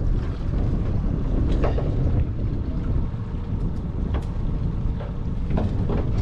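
Wind buffeting the microphone as a steady low rumble, with a few faint knocks about one and a half, four and five and a half seconds in.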